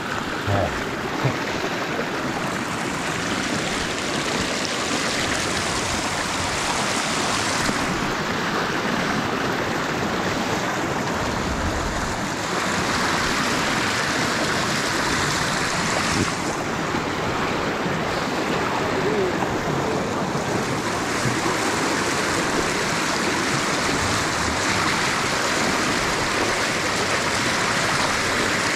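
Stream water rushing steadily at a shallow crossing, its tone shifting a few times along the way.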